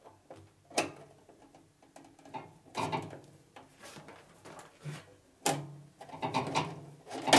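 A steel bandsaw blade being forced by hand into the blade guides and table slot of a 1960s Boice-Crane 14-inch bandsaw: metal scraping and rattling, with sharp clacks about a second in, after about five seconds and at the end.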